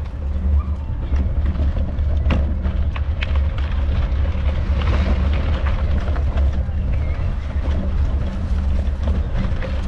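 Bicycle rolling along a park path: a steady low rumble with scattered rattles and clicks.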